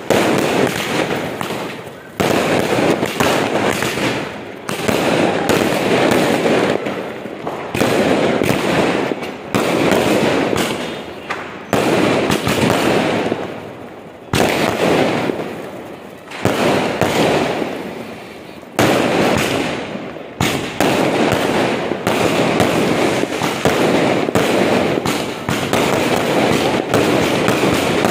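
Aerial fireworks, sky rockets, bursting overhead one after another, with dense crackling from the stars. Each burst starts suddenly and fades over two to three seconds before the next, about eight in all.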